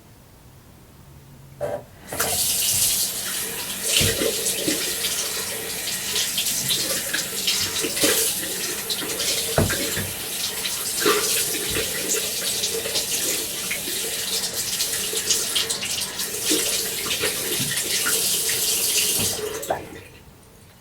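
Hands being washed under a running tap: the water starts just after a click about two seconds in and runs steadily into the sink, broken by irregular splashes, then stops near the end.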